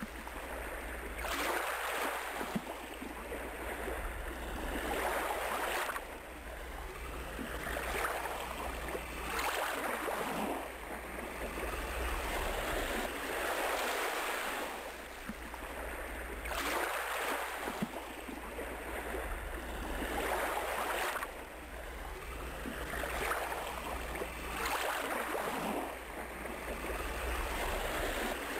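Ocean surf: waves washing in and breaking, swelling and falling back about every four seconds over a steady low rumble.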